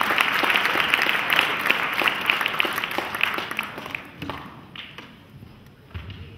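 Audience applauding, the clapping dying away over about four seconds, followed by a few scattered knocks and a low thump near the end.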